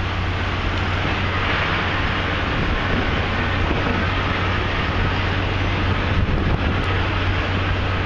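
Steady city street noise: a constant low hum under a wash of traffic rumble.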